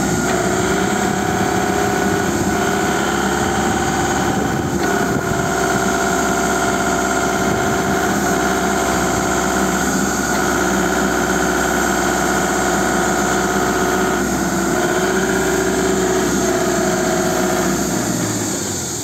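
A diesel forklift running as it drives back and forth, with a steady mechanical hum whose pitch steps up and down several times. The sound drops away shortly before the end.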